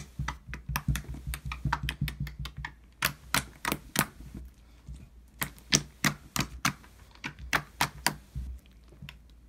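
Fingertip repeatedly poking a lump of light blue slime on a wooden table: an irregular run of sharp clicks and taps, several a second. A low steady hum runs underneath.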